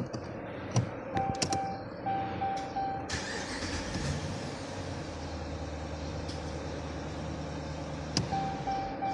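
Dashboard chime beeping in short repeated tones with a few clicks, then the 2013 Dodge Durango's engine cranks and catches about three seconds in and idles steadily before being switched off near the end, when the beeping resumes. The car is being started by the key fob directly, a workaround for its no-crank, no-start fault, which is traced to a failed passive-entry antenna.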